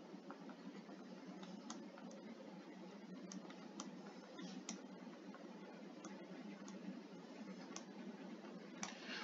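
Faint, irregular clicks and taps of a stylus on a tablet screen during handwriting, over a low steady hiss.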